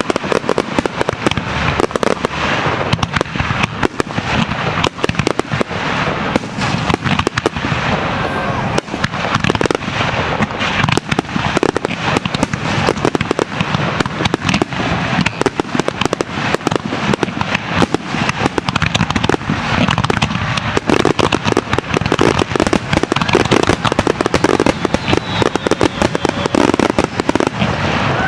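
Dense finale barrage of aerial firework shells bursting and crackling, many reports a second with no let-up.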